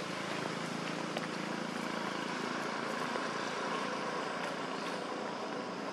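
Steady outdoor background noise: an even rushing sound with a faint low hum and a few soft clicks.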